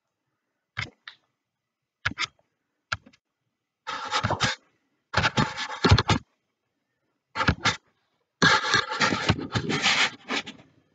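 Scraping and rubbing handling noise close to the microphone in several bursts, the longest near the end, each cutting off sharply into silence.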